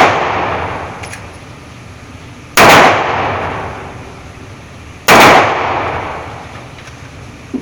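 Taurus G2C compact pistol fired twice, slowly, about two and a half seconds apart, each loud shot trailing off in a long echoing decay; the tail of a previous shot fades at the start.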